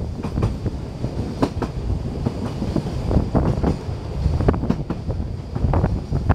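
A narrow-gauge train running along its track, heard from an open carriage: a steady rumble from the running gear and wheels clicking irregularly over the rail joints.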